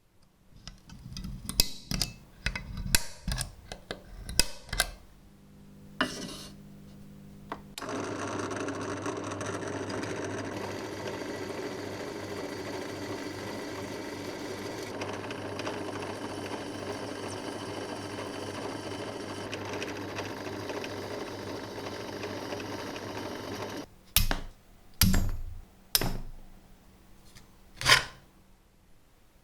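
A run of sharp knocks, then a small electric power tool's motor runs steadily for about sixteen seconds and cuts off, followed by a few more knocks.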